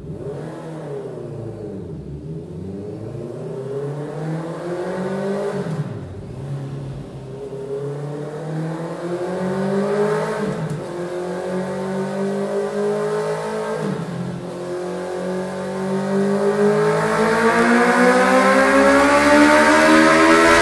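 Honda CB650R's inline four-cylinder engine running through a MIVV GP Pro aftermarket exhaust. The revs climb and drop back sharply three times, then climb steadily and grow louder toward the end.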